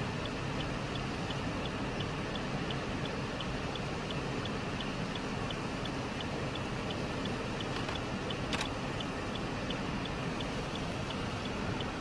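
Steady outdoor background hiss with a faint, high tick repeating evenly a little over twice a second, and a single brief click about two-thirds of the way through.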